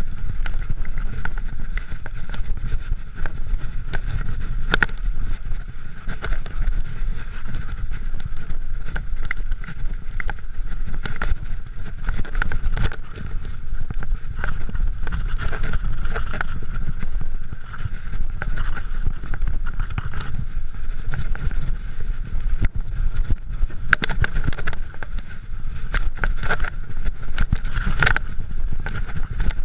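Mountain bike descending a rough dirt singletrack: a steady rumble of wind buffeting and tyres rolling on the microphone, broken by frequent irregular clatters and rattles as the bike hits rocks and roots.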